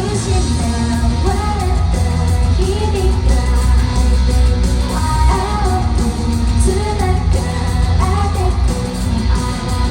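A live rock-pop song: a female lead voice sings a melody over heavy bass and drums, carrying the echo of a large hall.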